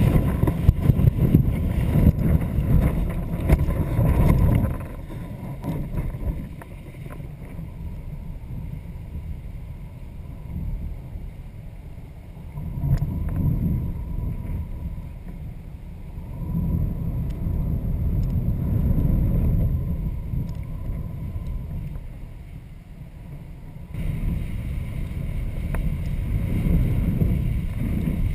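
Wind buffeting the microphone of a camera mounted on a kite in flight: a deep rumble that swells and eases in gusts every few seconds, loudest in the first four seconds, with a faint steady whistle underneath.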